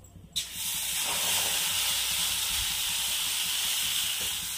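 Rice batter for chitau pitha sizzling as it hits a hot, ghee-greased metal kadai: a sudden hiss about half a second in that holds steady and eases slightly near the end.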